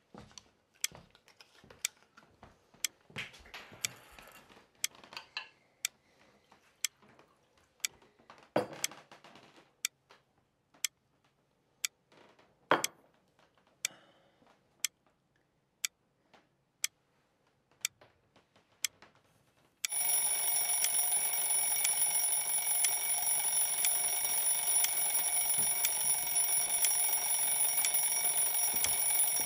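Twin-bell mechanical alarm clock ticking about once a second, with a few soft knocks and rustles in between. About two-thirds of the way through, the alarm bell suddenly starts ringing loudly and keeps ringing.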